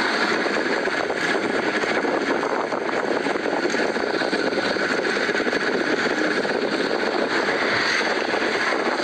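Steady engine and road noise of a vehicle moving along a dirt road.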